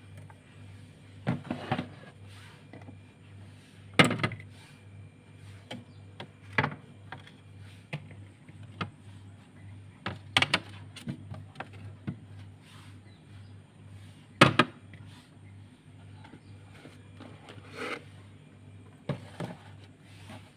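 Irregular knocks and clatters of things being handled, a few seconds apart, the loudest about 4 and 14.5 seconds in, over a steady low hum.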